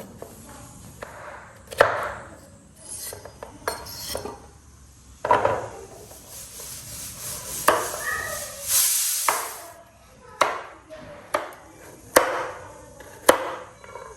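Kitchen knife chopping vegetables on a cutting board: about half a dozen sharp knocks at uneven intervals, with a scraping swish near the middle.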